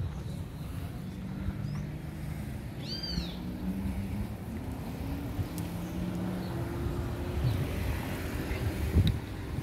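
Outdoor street ambience: a steady low hum of traffic with a vehicle passing, and one short, high, arched bird call about three seconds in. A single thump comes near the end.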